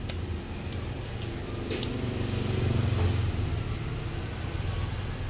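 A low, steady background rumble that swells about two seconds in and eases off again, with a few faint clicks.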